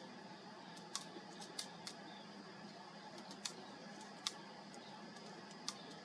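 Faint steady background hiss with scattered sharp clicks at irregular intervals, the loudest one a little past the middle.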